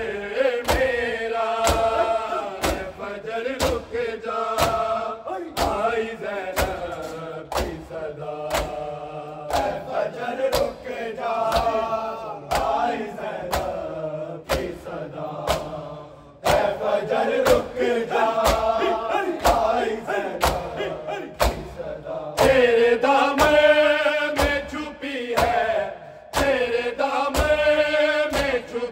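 A group of men chanting an Urdu noha in unison over a steady rhythm of sharp slaps from hands beating bare chests (matam). The chant breaks off briefly about halfway and then resumes.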